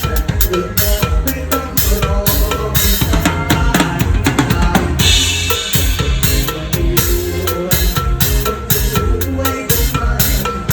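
Live drum kit playing a steady beat on bass drum and snare along with the band. About four seconds in, a busy run of strokes ends on a crash cymbal that rings for about a second.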